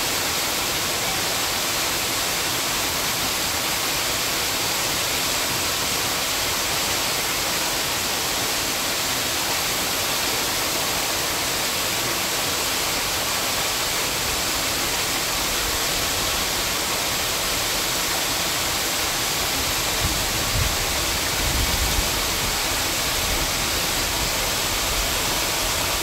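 Virje waterfall pouring into its plunge pool: a steady rush of falling water. A brief low rumble comes in about three-quarters of the way through.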